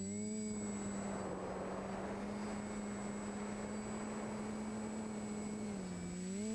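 TBS Discovery Pro quadcopter's electric motors and propellers humming steadily, heard from the onboard GoPro, with the pitch dipping briefly as the throttle eases at the start and again near the end. A rushing hiss of air over the microphone covers most of the middle.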